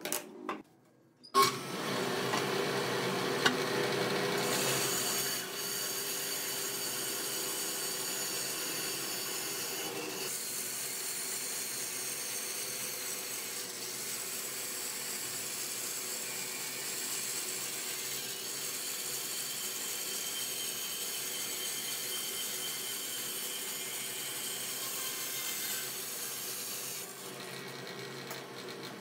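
Bandsaw running and cutting a curve through a thick block of wood: a steady sawing noise with the machine's hum beneath, starting about a second and a half in.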